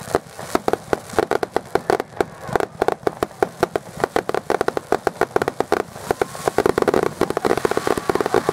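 Aerial fireworks bursting in rapid succession: a dense stream of sharp pops and crackles, many per second, that grows denser near the end.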